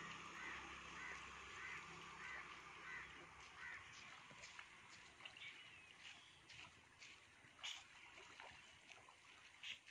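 Faint calls from a flock of ducks swimming on a pond: a run of short calls about one every half second in the first few seconds, then a few soft clicks.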